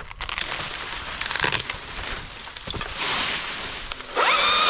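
Crackling and rustling of branches and leaves around the climber, then, near the end, a chainsaw spins up quickly to a steady high whine.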